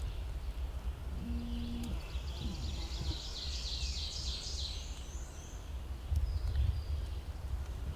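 A songbird singing a quick run of high notes for a few seconds, over a steady low rumble of wind on the microphone.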